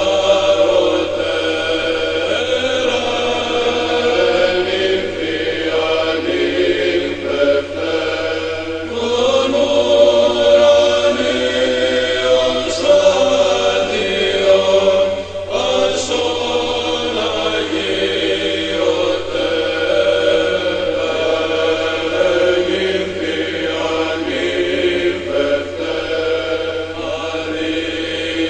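Choral chant: voices singing long, slowly moving notes over a steady low drone.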